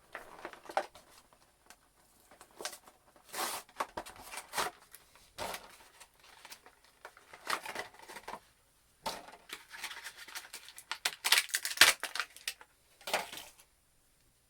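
A boxed action figure being opened: irregular bursts of tearing, crinkling and snapping from its cardboard and plastic packaging, busiest about 11 to 12 seconds in.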